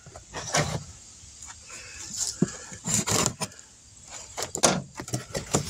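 Packing tape on a cardboard box being slit with a knife blade, a series of short irregular scrapes and rips along with the rustle of the cardboard being handled.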